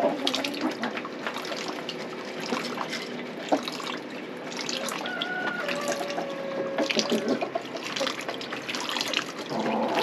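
Water pouring and splashing out of a plastic poultry waterer into a water pan, with small knocks and clicks from handling.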